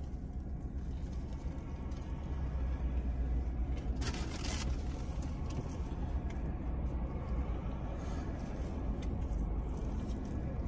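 Car engine idling, a steady low rumble heard inside the cabin, with a brief scratchy noise about four seconds in.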